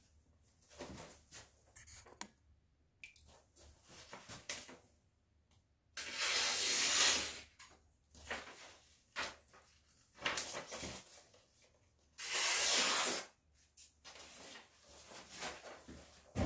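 Kitchen knife being worked on a whetstone: short, irregular scraping and rubbing strokes, with two loud hissing bursts about six and twelve seconds in.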